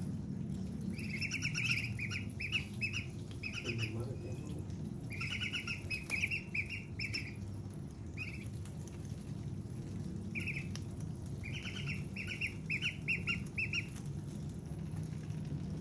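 Young white domestic ducks peeping: high, short calls in quick runs of several notes, coming on and off while they peck at a slice of watermelon.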